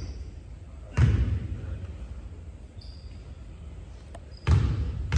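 Basketball hitting a hardwood gym floor: two loud bounces about three and a half seconds apart, each echoing through the hall.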